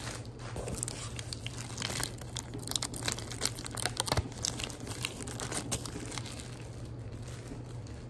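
Clear plastic candy bag crinkling as hands twist its top closed, with a dense run of sharp crackles in the middle that thins out toward the end.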